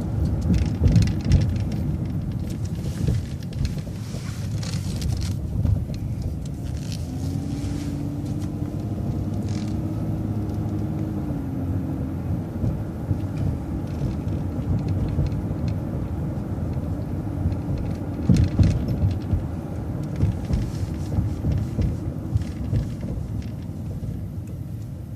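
City transit bus under way: a steady rumble of engine and road noise. A thin hum comes in about seven seconds in and lasts some five seconds. A few sharp knocks or rattles come about two-thirds of the way through and are the loudest moment.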